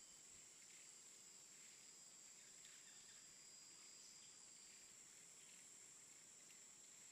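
Faint, steady, high-pitched drone of insects, with a few soft chirps scattered through it.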